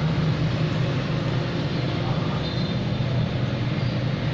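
A steady, unbroken whirring noise with a strong low hum.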